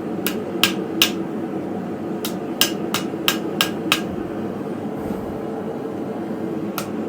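Hand hammer striking hot steel on an anvil while forging a hook: sharp ringing blows in short runs, three, then about six, then a pause and more near the end. A steady hum runs beneath.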